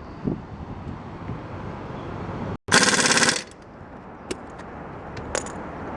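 Impact wrench rattling in one short burst of under a second, about two and a half seconds in, as a wheel's lug nuts are run on, with a few single clicks afterwards.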